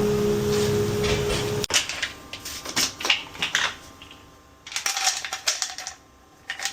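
A steady hum that stops abruptly about a second and a half in, followed by scattered light clicks and clinks of small hard objects.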